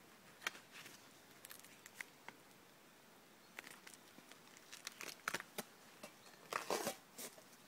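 Crinkling and rustling of wrapping being handled, in short irregular bursts with a louder flurry near the end.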